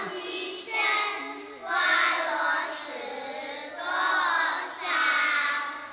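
Children singing together, in phrases of about a second with short breaks between them.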